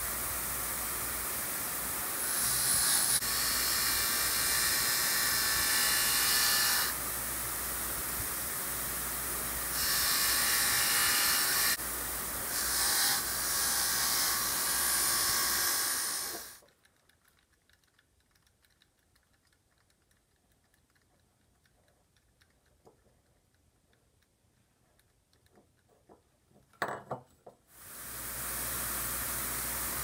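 Bench grinder running steadily, with a small metal part pressed against its spinning wheel three times to clean it; each contact is a louder hiss lasting a few seconds. About halfway through the sound cuts to near silence, broken by a few clicks, and the grinder's steady running comes back near the end.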